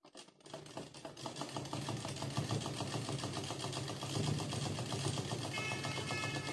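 Domestic sewing machine stitching lace onto a blouse: it starts from rest, picks up speed over the first second or so, then runs at a steady speed with a rapid, even clatter of the needle. A thin high tone joins near the end.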